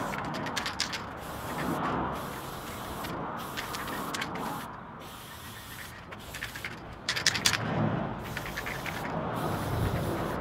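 Aerosol spray paint can spraying in hissing bursts with short breaks. Its mixing ball rattles as the can is shaken, just after the start and again around seven seconds in.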